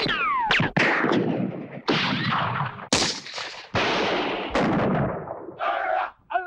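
Film-library gunshots fired in a quick run of about half a dozen shots, each trailing off with a long echo. The first shot carries a falling ricochet whine. Shouting voices start near the end.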